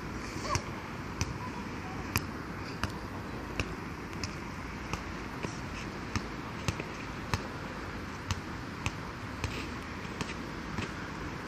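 Basketball being dribbled on a hard outdoor court: a steady run of sharp bounces, about three every two seconds, over a constant background hiss.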